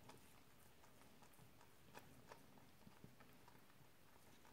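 Near silence broken by a few faint wet clicks from a mother Persian cat licking her newborn kitten, the most distinct about two seconds in.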